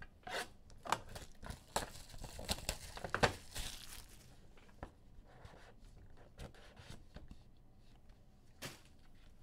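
Sealed sports-card boxes and packs being torn open by hand, plastic wrapping ripping and crinkling. A quick run of sharp crackles and rips fills the first four seconds, then only quieter, scattered handling noises.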